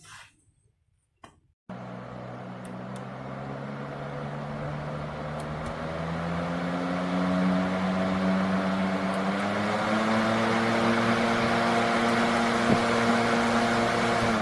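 A couple of faint clicks, then the Vornado Model 80 box fan starts suddenly and spins up. A steady rush of air with a motor hum rises slowly in pitch and gets louder, then levels off.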